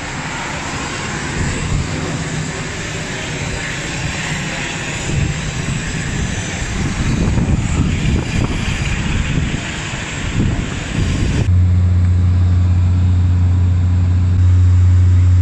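Dash 8 Q400 turboprop noise: a loud, broad rushing engine noise for about eleven seconds, then an abrupt change to a steady low propeller drone.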